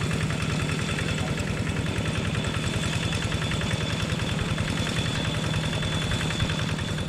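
Diesel locomotive's engine running at low power as it hauls a short train of old freight wagons at walking pace, a fast, even throb with a thin steady high whine above it.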